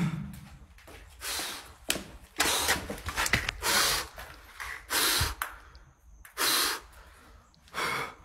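A person breathing hard close to the microphone: about seven loud, breathy exhalations at uneven intervals of roughly one to one and a half seconds, over a low rumble of handling noise.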